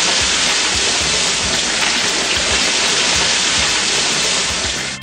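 Chicken pieces deep-frying in hot oil: a loud, steady sizzle that stops abruptly at the end.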